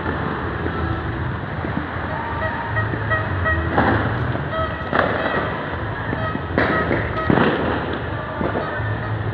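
Many fireworks and firecrackers going off at a distance: a continuous din of pops, with four louder bangs in the middle part.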